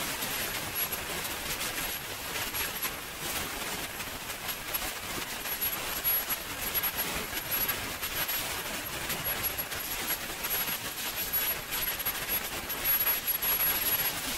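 SWIWIN 300 model jet turbine running steadily: a continuous rushing noise with a thin, steady high-pitched whine.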